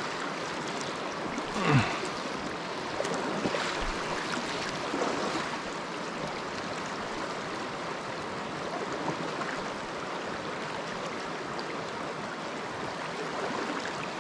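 A small mountain trout stream running steadily over rocks. About two seconds in, a brief sound falls in pitch above it.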